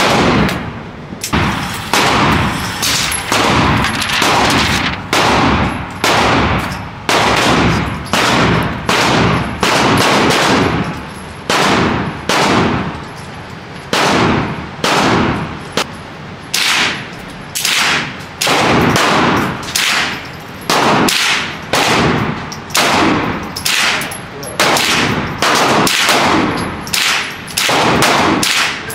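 Firearm shots fired one after another, dozens of single loud cracks at an uneven pace of about one to two a second, each with a short echoing tail.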